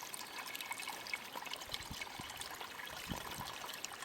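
Small pond waterfall fed by a solar-powered pump, trickling and splashing steadily into the pond.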